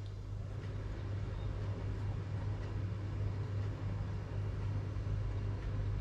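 A steady low hum under a faint even hiss.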